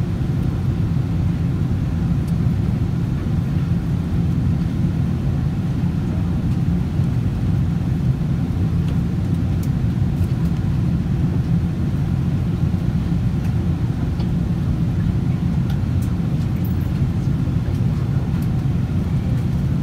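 Steady low rumble of airflow and engines inside the cabin of a Boeing 777-300 airliner during its descent to landing, with a few faint ticks.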